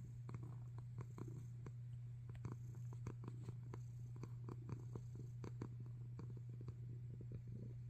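Domestic cats purring close up, a steady low rumble with short soft clicks scattered through it.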